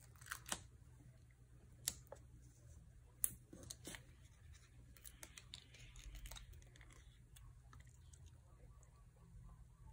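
Faint handling of cardstock and foam adhesive dots: a few sharp little ticks in the first four seconds as the backing is peeled and the strip handled, then soft rustling as the sentiment is pressed onto the paper-covered box.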